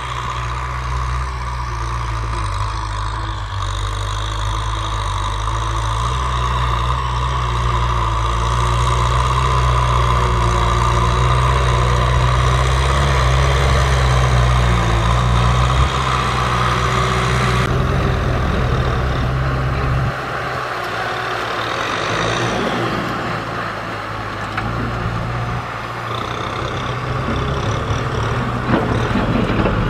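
Kubota M6040SU diesel tractors running steadily under load as they push soil with front blades, a deep, even engine hum. About two-thirds of the way through the deep note drops away and a lighter, noisier engine sound takes over.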